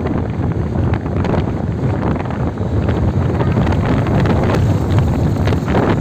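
Wind rushing over a phone microphone on a moving vehicle: a loud, steady low rumble mixed with road and traffic noise.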